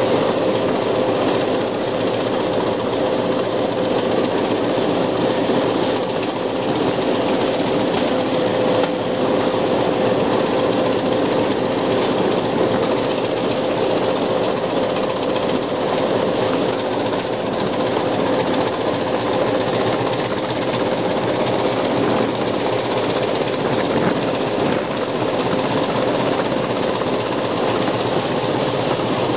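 Class 20 diesel locomotive's English Electric 8SVT engine working hard on the move, with its throbbing 'chopper' beat and a high turbocharger whistle. The whistle rises in pitch a little past halfway through.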